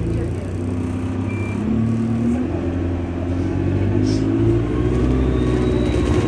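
Diesel engine of a single-deck bus heard from inside the passenger saloon, accelerating with its note climbing in steps, twice in a few seconds, and growing louder toward the end.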